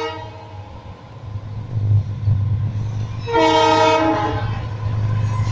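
Indian Railways diesel locomotive approaching, its engine rumble growing louder. About three seconds in it sounds its air horn once, a chord of several steady notes lasting about a second.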